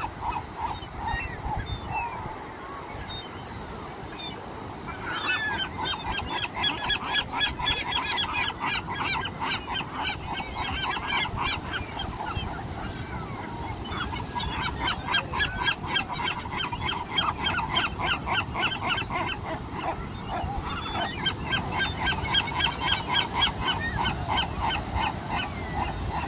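Gulls calling in fast runs of short, repeated notes, in three bouts a few seconds long, the first starting about five seconds in, over the steady wash of surf.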